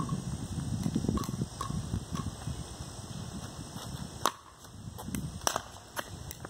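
Pickleball rally on a concrete court: a string of sharp, hollow pops from paddles striking the plastic ball and the ball bouncing. The pops grow louder in the second half, over a low rumble in the first few seconds.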